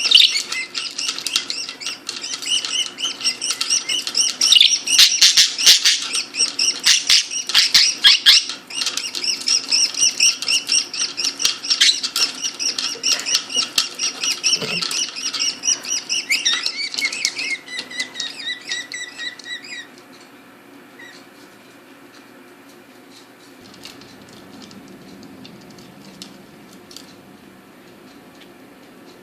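Budgerigars chattering and chirping in rapid, repeated high notes. The chirping stops abruptly about two-thirds of the way through, leaving only faint ticking.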